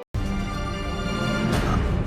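Dark, tense drama score with a heavy low rumble. It starts suddenly after a brief dropout, and a bright hit rises through it about one and a half seconds in.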